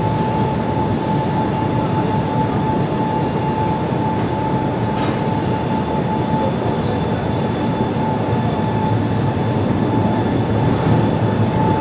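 Many outdoor air-conditioner units running together: a steady whirring rush of fans with a constant whine.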